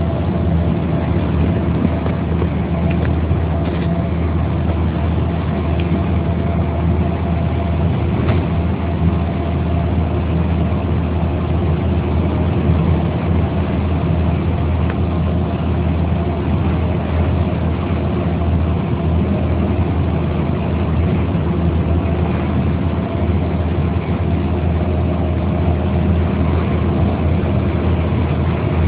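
Mercedes-Benz O 405 bus engine running steadily at an even speed, a deep, unchanging drone.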